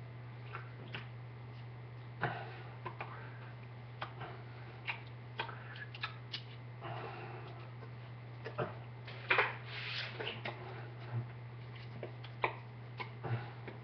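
Scattered taps, light claps and brushing of hands against each other and a cotton T-shirt as someone signs, with a few longer rustles, over a steady low electrical hum.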